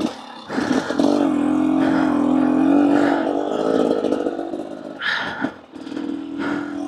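Two-stroke engine of a KTM EXC 250 enduro motorcycle running under throttle, its pitch held fairly steady for about four seconds, dropping off briefly about five seconds in, then picking up again.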